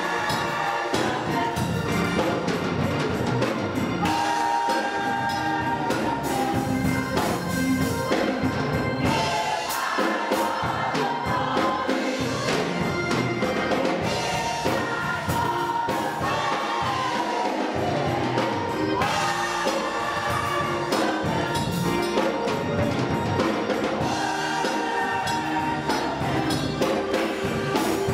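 Gospel choir singing with a live band, drums and percussion beating steadily under the voices.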